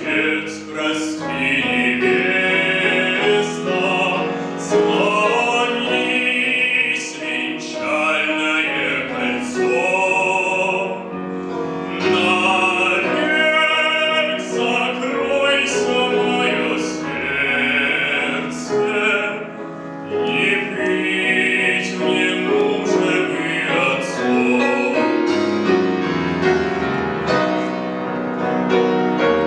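A classically trained male voice sings a slow Russian folk song with wide vibrato, accompanied by piano. Near the end the voice stops and the piano plays on alone.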